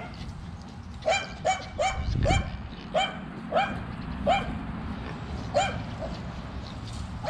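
A dog barking: a run of about eight short, high barks over a few seconds.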